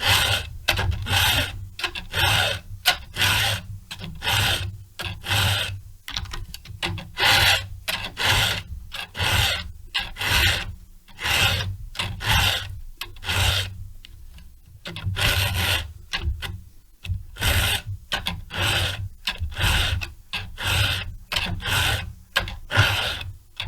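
A chainsaw file being pushed by hand across the cutters of a saw chain, a steady run of rasping strokes about one and a half a second, with a brief pause about halfway through. The full-chisel cutters are being re-filed to a milling angle.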